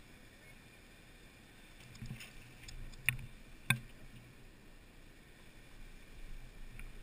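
Faint handling noises as a dropped heavy adventure motorcycle is hauled upright on gravel, with two sharp clicks about half a second apart a little past the middle, over a faint low hum.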